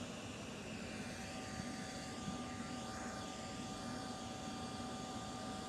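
Jet aircraft engine running, a steady noise with a steady high whine that comes in about a second in.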